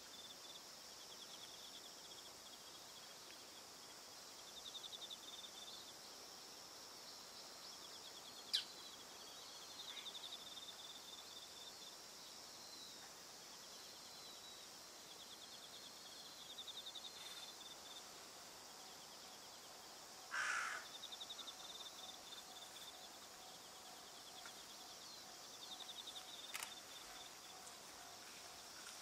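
Faint outdoor evening sound: crickets trilling in short pulsed bouts that come back every few seconds. One sharp click comes about a third of the way in, and a single crow caw about two-thirds of the way in.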